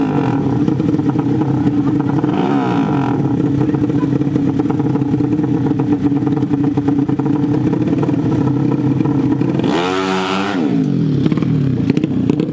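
150 cc drag-bike engines idling at the line, running steadily with short throttle blips right at the start and about two and a half seconds in. About ten seconds in there is one hard rev that rises sharply and drops back to idle.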